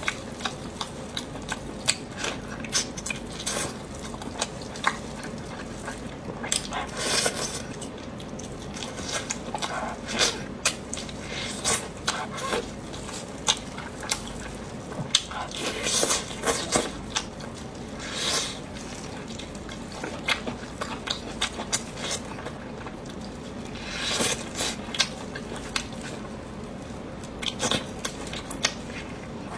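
Close-miked person eating: chewing and wet mouth clicks in an irregular patter, with a few longer, louder bursts and occasional clinks of cutlery on dishes.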